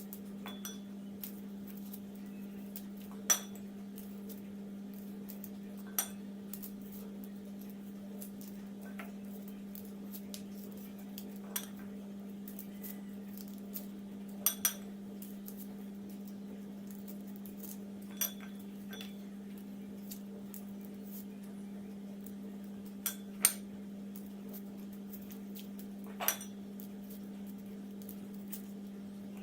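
Occasional sharp clinks against a dish while garlic cloves are peeled by hand, one every few seconds, over a steady low hum.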